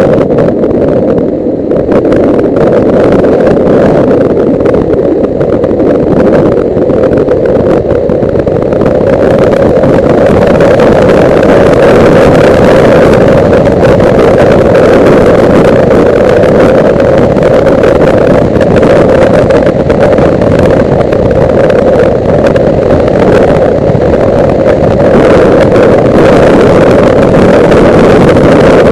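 Suzuki GS500E parallel-twin engine running at road speed, heard together with the rush of wind over the bike-mounted camera's microphone. It gets louder in the first couple of seconds, then holds steady.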